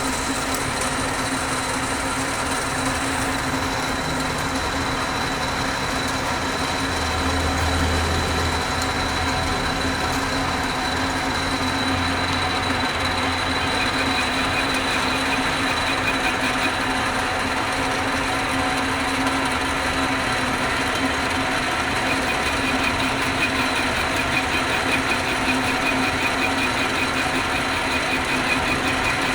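Metal-working lathe running steadily: a continuous motor hum with a thin high whine. About halfway through, a faint, fast chatter joins it.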